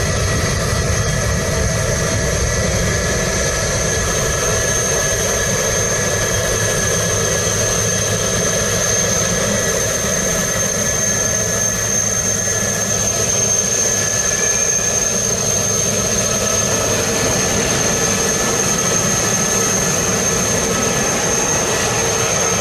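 Jet airliner engines running steadily, with a constant high-pitched whine over a low rumble.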